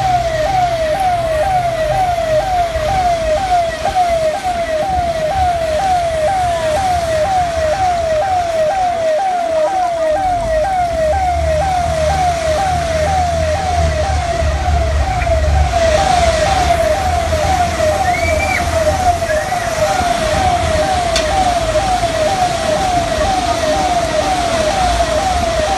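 A siren tone repeating a quick pitch sweep a little more than twice a second, steady and unbroken, with a low rumble underneath that swells in the middle.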